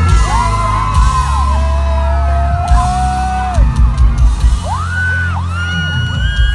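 Loud music with a heavy bass beat, with crowd voices yelling and whooping in long rising and falling cries over it.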